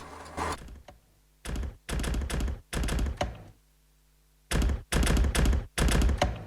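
Experimental sampler music built from recorded workplace noises: short bursts of noise with a deep low end, cut on and off abruptly in a stuttering rhythm. It falls silent for about a second midway and comes back louder.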